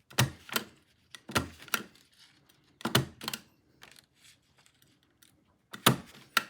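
Vintage stapler being worked four times, each stroke giving a pair of sharp metal clacks about half a second apart.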